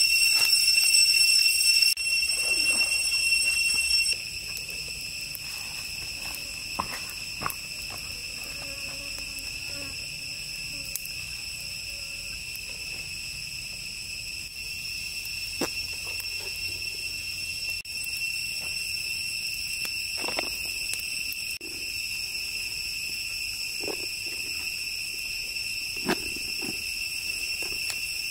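Steady high-pitched drone of insects, louder for the first few seconds and then dropping suddenly. A few light knocks and clicks.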